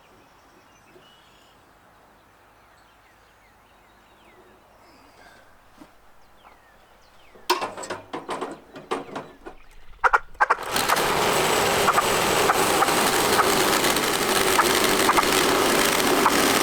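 Faint bird calls, then a run of loud, irregular knocks and rattles lasting about three seconds, after which the portable sawmill's engine starts and runs steadily.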